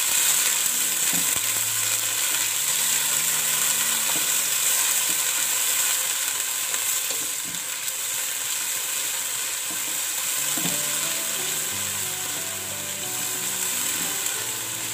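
Hot oil sizzling steadily in a wok as ginger-garlic paste and whole spices fry, stirred with a wooden spatula. The sizzle eases a little about halfway through.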